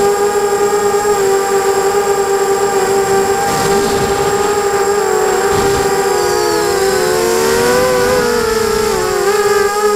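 GT 250 racing quadcopter's electric motors and propellers whining at a high, even pitch. From about six seconds in, the motors' pitches split apart and slide up and down against each other as their speeds change in a turn, then come back together near the end. A rushing noise comes in around four seconds.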